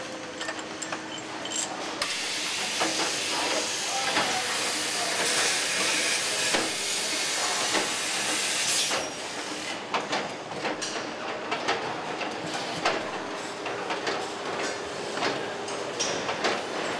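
Engine assembly line noise: a loud steady hiss from about two seconds in until about nine seconds, then scattered clicks and clinks of metal parts and tools.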